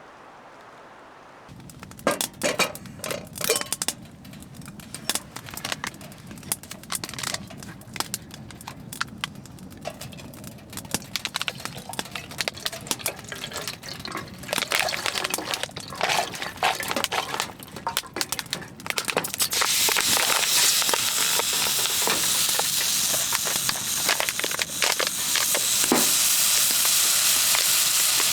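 Water heating on a wood stove: irregular crackling and sizzling, then from about two-thirds of the way in a steady hiss as the water nears the boil.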